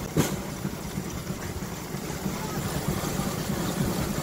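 Rail bike's steel wheels rumbling steadily along the track, with one sharp click just after the start.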